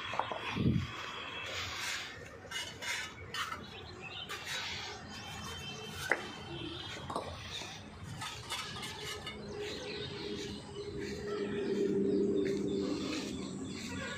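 Outdoor ambience with scattered short bird chirps, and a low steady drone that swells for a few seconds in the second half.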